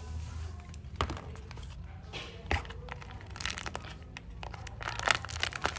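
Paper squishy being squeezed and handled: a string of short paper-and-tape crinkles and crackles, the loudest about five seconds in.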